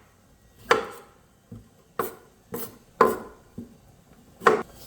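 Knife chopping against a cutting board while produce is trimmed: about seven uneven strokes, the loudest roughly a second or more apart.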